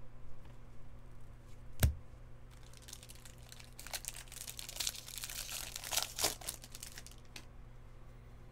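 Baseball card pack wrapper being torn open and crinkled by hand for several seconds, preceded by a single sharp knock about two seconds in.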